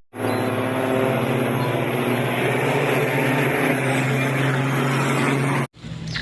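Steady engine-like drone at an even pitch, the sound given to a cement mixer truck; it starts abruptly and cuts off suddenly about half a second before the end.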